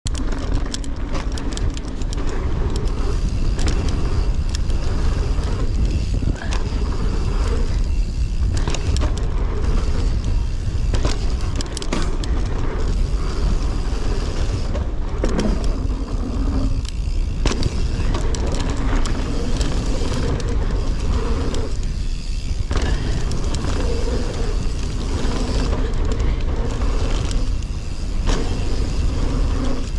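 Mountain bike ridden fast down a packed-dirt jump trail: a heavy rush of wind on the microphone, with tyre noise on the dirt and frequent clicks and rattles from the bike.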